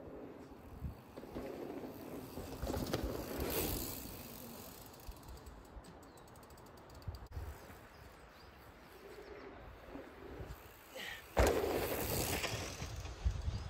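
Woodland birds calling, among them a pigeon cooing, over the hush of a pine wood. Near the end comes a louder burst of mountain-bike tyres running over a dirt trail.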